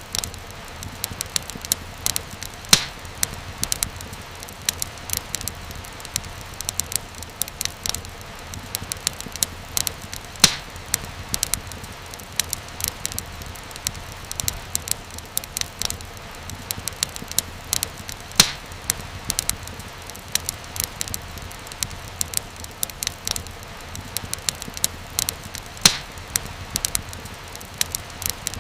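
Wood fire crackling steadily over a soft hiss, with frequent small snaps and a few louder pops.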